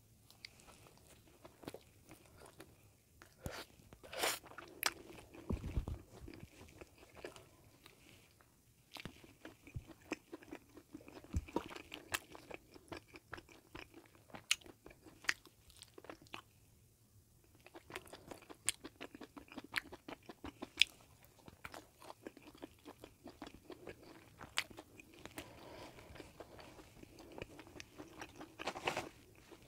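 Close-up biting and chewing of a bagel sandwich filled with sausage and melted cheese: many short crackles from the bread as it is bitten, with chewing between bites.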